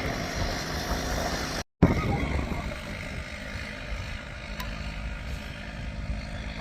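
Wind noise on the microphone over a bulldozer's engine running, cut off abruptly about two seconds in. After a brief silent gap, a quieter steady low hum follows.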